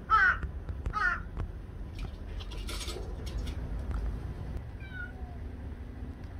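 Crow cawing, two loud harsh calls falling in pitch in quick succession, followed by a brief rustle about three seconds in and a faint short high call about five seconds in.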